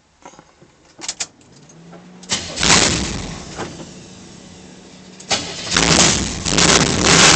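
Dash toggle switches click a few times, then a short hum. About two seconds in the Chevelle's engine fires up loud and eases back, then about five seconds in it is revved loud again.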